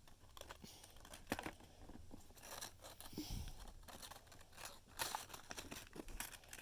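Folded origami paper being handled, rustling and crinkling in a faint, irregular scatter of crackles.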